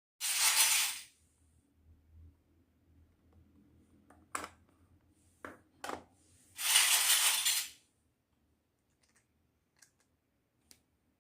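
Small plastic and metal toy kitchen pieces being handled: a few sharp clicks and clinks as they are set down, between two short rustling bursts about a second long, one at the start and one about two-thirds in.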